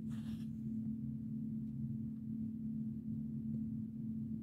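Steady low hum of room tone, with a brief soft rustle at the very start as a hand reaches into the jewelry tray.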